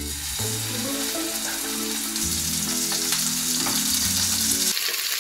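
Beef steak sizzling in a frying pan of hot olive oil, the sizzle starting the moment the meat goes in and carrying on steadily.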